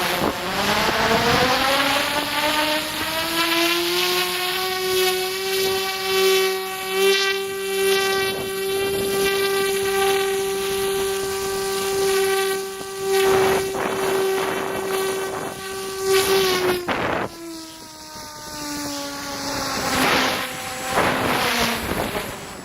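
Wind buffeting the microphone under a loud, steady pitched hum with many overtones. The hum rises in pitch over the first few seconds, holds until near the end, then slides lower.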